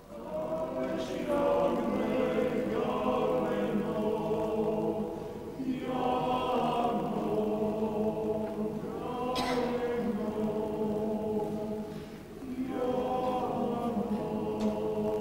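Mixed choir of men's and women's voices singing a Macedonian oro, a folk dance song, unaccompanied and in close harmony. The singing comes in sustained phrases that break off briefly twice.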